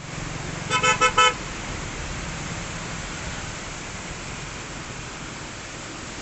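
Vehicle horn tooting three times in quick succession about a second in, over a steady rushing noise.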